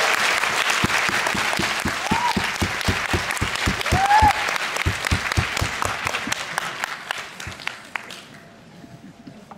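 Audience applauding, with a couple of short shouts of approval. The applause dies away near the end.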